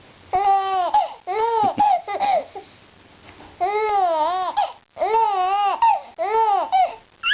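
A four-month-old baby cooing and babbling in a series of drawn-out vocal sounds whose pitch rises and falls.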